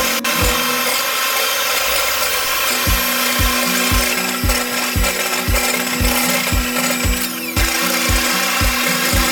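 Electric hand mixer running steadily, its wire beaters whipping egg whites to foam in a glass bowl, over background music with a steady beat.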